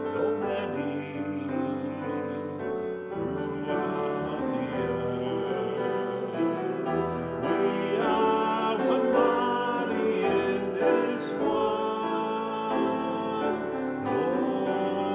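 A man singing a hymn refrain with grand piano accompaniment.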